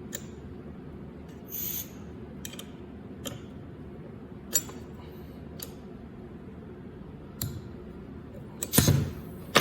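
Scattered sharp metallic clicks and clinks, about half a dozen, from tools and metal parts being handled while the ultrasonic welding gun is screwed down and locked onto the welding machine, with a louder clatter near the end over a steady low hum. A brief hiss comes just under two seconds in.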